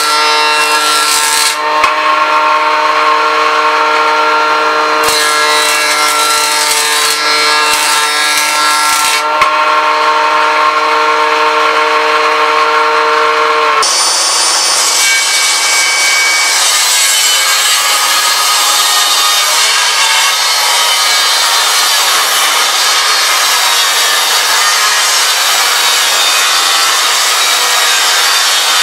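A jointer runs with a steady hum and cuts a board in two passes: briefly at the start, then from about 5 to 9 seconds. From about 14 seconds the sound changes abruptly to a table saw ripping a board, a steady dense cutting noise.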